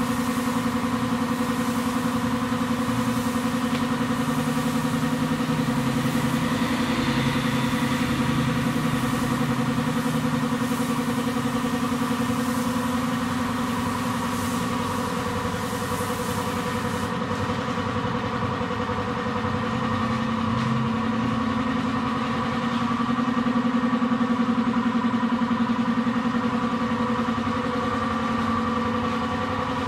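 Air compressor running with a steady, constant hum, supplying a paint spray gun. Short pulses of spray-gun air hiss come and go over it, then stop a little over halfway through.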